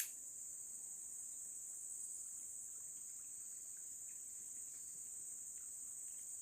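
Steady, unbroken high-pitched drone of insects in the forest, a continuous shrill whine that does not change. A sharp click right at the start.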